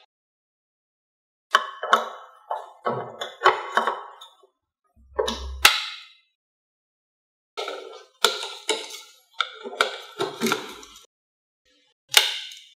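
Hard plastic clicks, taps and knocks of a Super 8 projector's reel arms and plastic film reels being handled and pushed onto their spindles. They come in several short clusters separated by silence, with a short dull thump about five and a half seconds in.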